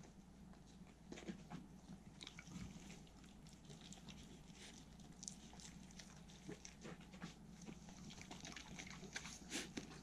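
Two Welsh corgis licking and chewing food from a person's fingers: many small, faint wet clicks and licks, starting about a second in and coming thicker near the end.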